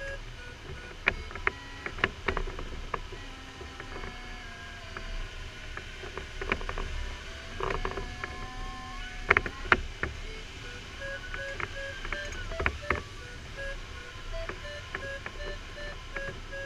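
A glider's electronic variometer beeping in quick short pips, the audio signal of climbing in lift. In the middle the pips give way to a steady tone that slides up and down in pitch before the beeping returns. Sharp clicks sound now and then over a low steady rush of air in the cockpit.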